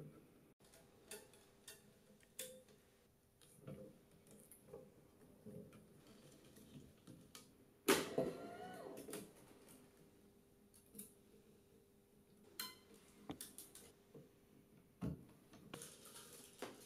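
Tennis racquet being strung on a stringing machine: scattered small clicks and taps of string and machine clamps, with a longer, louder scraping sound about eight seconds in as the string is drawn through. A faint steady hum runs underneath.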